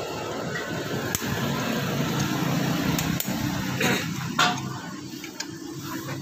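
A metal hand tool clicking and clinking against the intake manifold and throttle body fittings on a Yamaha Mio Soul i 125 scooter engine, a handful of sharp clicks spread over a few seconds, the loudest a little past halfway. A steady low hum runs underneath.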